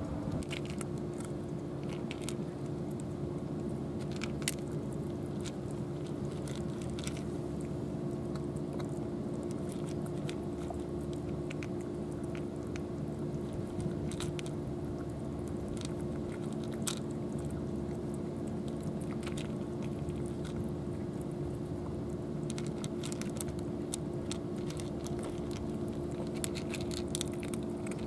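Cats crunching dry kibble from trays: scattered, irregular crisp crunches. A steady low hum sits underneath throughout.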